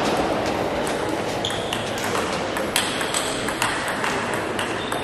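Table tennis rally: the ball clicks sharply off bats and table in quick succession, with more ball clicks from neighbouring tables in the hall.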